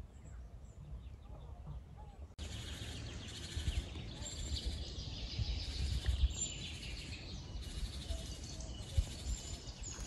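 Woodland ambience of wild birds chirping: faint scattered calls at first, then, after an abrupt cut about two seconds in, a denser and louder chorus of high chirps over a low rumble, with a few dull thumps.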